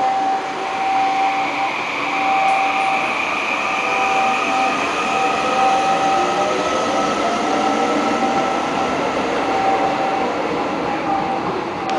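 Electric subway train pulling out of the station and running past: its traction motors whine in several tones that climb slowly as it gathers speed, over a steady rumble of wheels on rail and a steady tone that keeps breaking off and returning.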